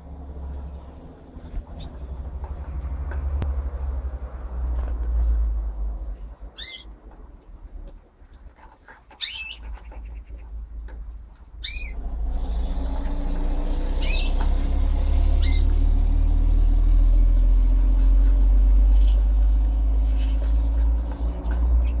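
Budgies giving short, sharp chirps and squawks every few seconds over a steady low rumble; about halfway through the background gets louder and busier.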